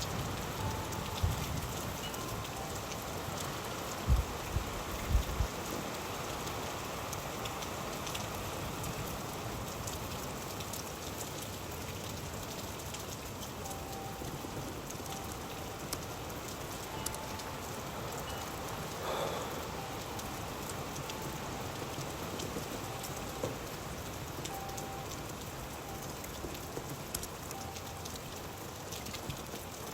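Steady rain falling, with many individual drops ticking on a hard surface. A few low thumps come about four to five seconds in.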